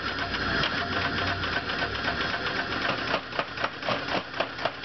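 Iron Kiss 50 lb power hammer pounding hot steel between its dies in a fast, steady run of blows. From about three seconds in, the blows come louder and more separate, about five a second.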